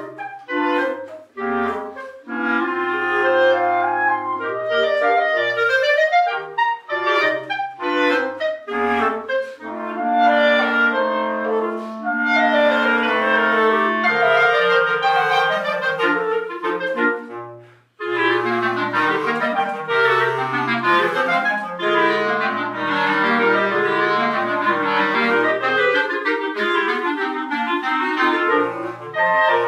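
Clarinet quartet with a bass clarinet on the low part playing a classical piece, with short detached notes and longer held lines in several voices. The music stops for a moment about two-thirds of the way through, then all four come back in together.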